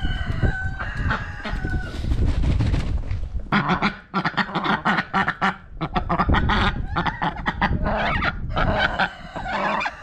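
White domestic ducks quacking loudly in a rapid, harsh run of calls that starts about three and a half seconds in, after a low rumble.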